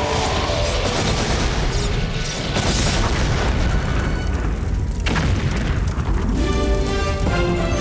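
Sound-effect explosions booming and rumbling over dramatic background music; the music comes through more clearly near the end.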